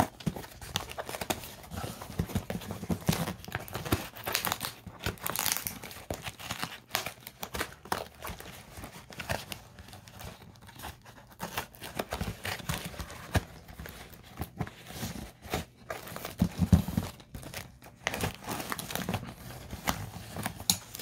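Taped cardboard shipping box being cut and torn open: packing tape and cardboard crinkling, tearing and scraping, with irregular scratches and knocks against the box.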